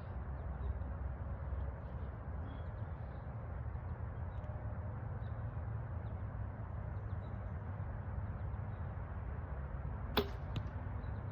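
A single sharp snap of a 43-pound-draw bow being shot near the end, over a steady low background rumble.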